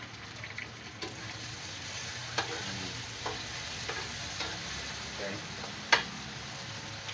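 Diced pork sizzling as it fries in oil in a pan, stirred with a spatula that scrapes and knocks against the pan several times. The sharpest knock comes about six seconds in.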